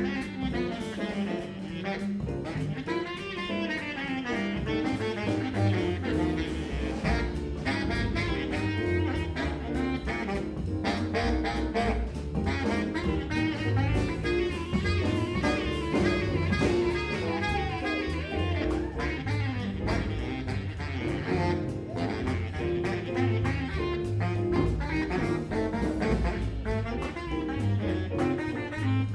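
Instrumental jazz-style music with a steady beat.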